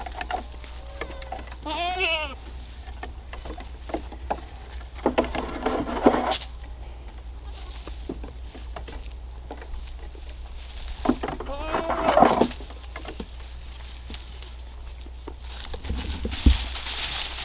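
Baby goats bleating: several separate calls with a wavering, trembling pitch, about two, five and eleven seconds in. A short thump comes near the end.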